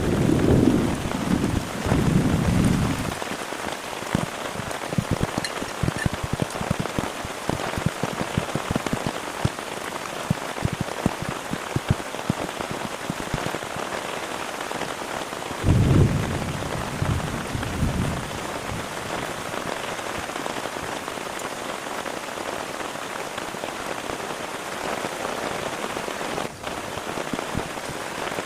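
Heavy rain falling steadily, with many single drops striking close by. Low rumbles of thunder sound in the first few seconds and again about sixteen seconds in.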